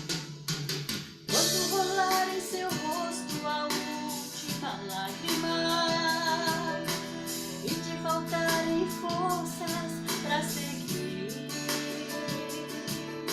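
Music: the intro of a Brazilian gospel song, played by a band with drum kit and guitar under a wavering lead melody. The band comes in fuller about a second in.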